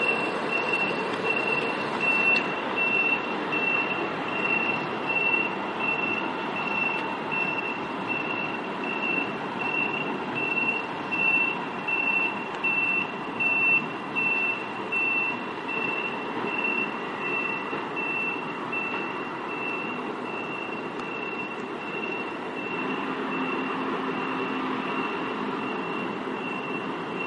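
Backup alarm of a hi-rail maintenance-of-way boom truck beeping about once a second as it reverses along the rails, over the steady running of its diesel engine.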